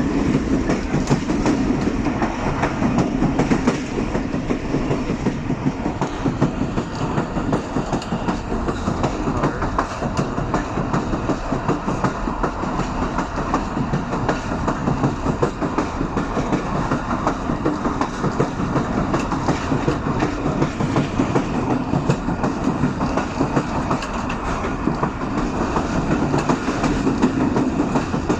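Passenger train coach running along the track, its wheels clattering over the rail joints steadily above a continuous rumble.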